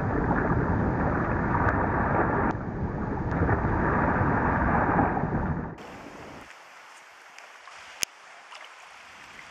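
Wading boots splashing through a shallow, rippling river, a loud steady splashing for about six seconds. Then it drops suddenly to faint stream noise, with a single sharp click near the end.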